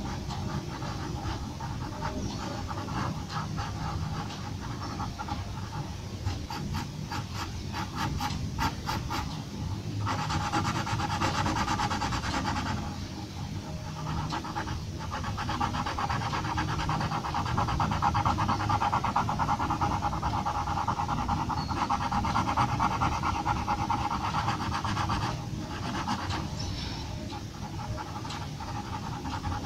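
Graphite pencil scratching on paper in quick, short hatching strokes. A run of separate strokes, several a second, gives way about ten seconds in to denser, continuous scratching that pauses briefly now and then.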